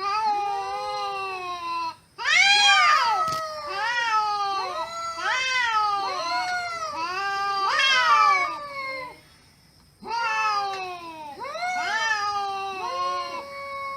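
Cats meowing in a long run of short, arching meows, one after another, with brief pauses about two seconds in and again past the middle.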